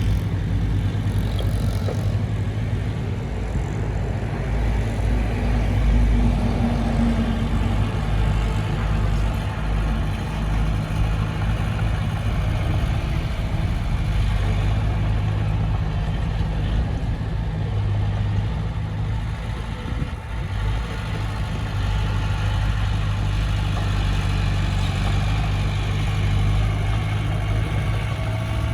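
Heavy diesel engine of earthmoving machinery running steadily, its note rising and falling slightly with load, with a brief dip about two-thirds through.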